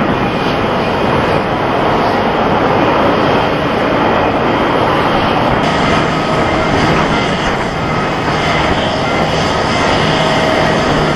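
Jet airliners on final approach: steady jet engine noise from a Japan Airlines Boeing 787, then, after an abrupt cut about five and a half seconds in, an AIR DO Boeing 767 coming in to land, its steady engine noise carrying a few faint steady whines.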